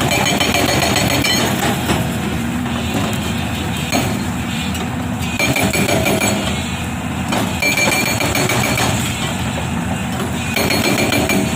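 Unicorn UN140B hydraulic rock breaker on an excavator hammering in rapid, even blows, in bursts of a second or two separated by short pauses, over the excavator's running engine.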